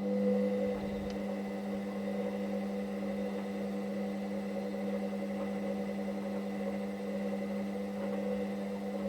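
Hoover Dynamic Next tumble dryer running with a steady electric hum.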